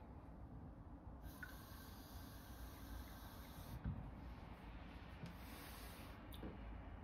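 Quiet room tone with a faint hiss that comes and goes, and one soft bump about four seconds in.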